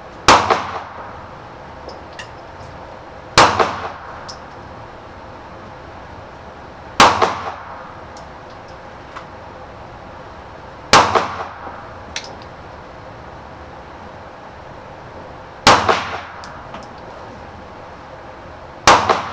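Six pistol shots fired singly and slowly, three to five seconds apart, each ringing out and echoing down the indoor range, with a few fainter clinks after each shot.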